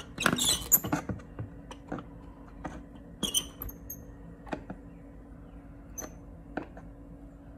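A wood chisel twisted in the crack beside a window sash's trim strip, the strip squeaking and clicking as it is pried out of its track. A cluster of clicks comes in the first second, then scattered ticks and a few short high squeaks.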